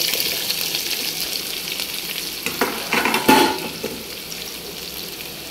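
Freshly added sliced onions sizzling in hot oil with cumin and mustard seeds, the sizzle gradually getting quieter. A few louder scrapes and knocks come around three seconds in.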